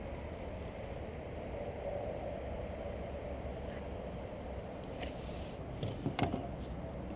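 A steady low rumble, with a few sharp clicks and rattles about five to six seconds in as a wobbler lure on a fishing line is handled and weed is picked off it.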